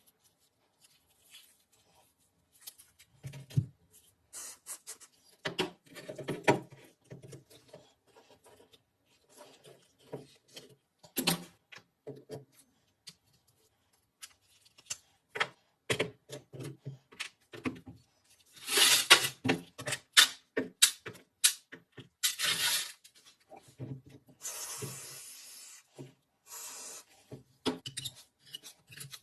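Hand work on metal parts: scattered clicks and knocks with short bursts of scraping, and a steady hiss lasting a second or two late on.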